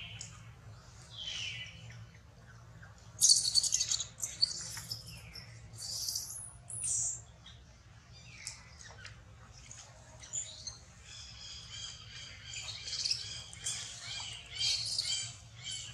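Long-tailed macaques giving high-pitched squeals and falling squeaks, with a loud harsh screech about three seconds in and a run of shrill squealing near the end.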